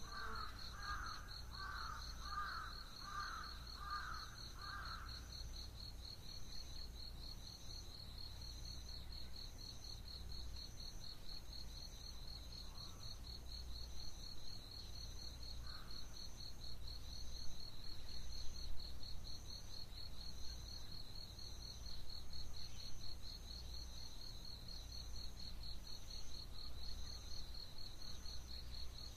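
Early-morning rural ambience: an insect keeps up a continuous, rapidly pulsing high trill. In the first five seconds a crow caws about six times in steady succession. A low, steady background rumble runs underneath.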